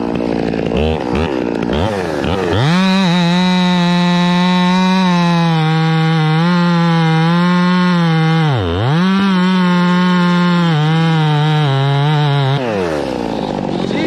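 Top-handle chainsaw revving up and cutting through a fir limb at the trunk. It runs at steady full throttle under load, dips in revs briefly around the middle of the cut, and drops back to idle near the end as the throttle is released.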